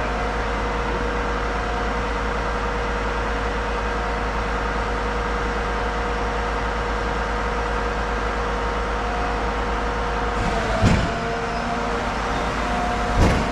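A large diesel engine running steadily with a constant hum and several steady tones. Two brief knocks come near the end.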